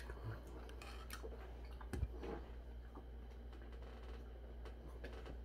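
Faint tableware handling: a click at the start and a soft knock about two seconds in, with a few light ticks, over a low steady hum.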